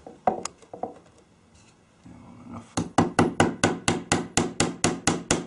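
Hammer tapping pins into a wooden staff bead: a few single knocks, then from about halfway a fast, even run of strikes, about five a second.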